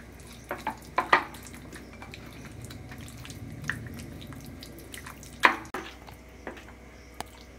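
Raw chicken leg pieces being mixed into a thick yogurt-and-spice tandoori marinade in a bowl: soft wet squelching with a few sharp clicks, the loudest about five and a half seconds in.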